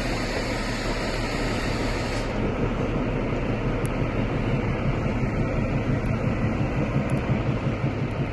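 Diesel locomotive of a narrow-gauge train running past close by, a low engine rumble that grows gradually louder as it comes alongside.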